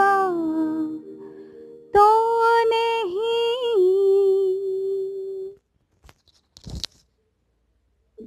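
A woman singing long, wordless held notes. The first glides downward, and the second wavers slightly before stopping about five and a half seconds in. A short click follows near the end.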